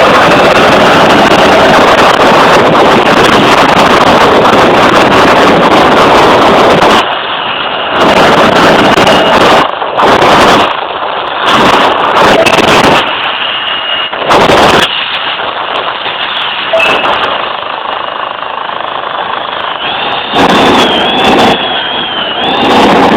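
F-16 fighter jet's engine noise, loud and rushing, steady at first and then rising and falling in uneven swells from about seven seconds in.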